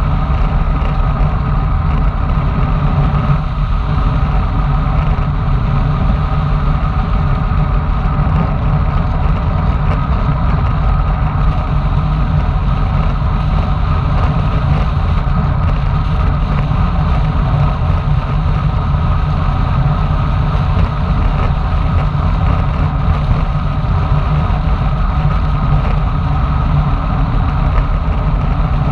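Loud, steady wind rush buffeting the microphone of a bicycle-mounted action camera on a fast road-bike descent, mixed with tyre noise on asphalt.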